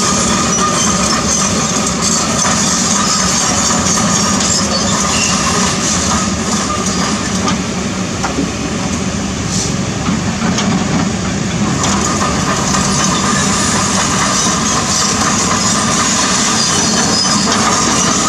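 Kobelco SK200 hydraulic excavator's diesel engine running steadily while the machine travels on its steel tracks, the track chains clanking and squealing.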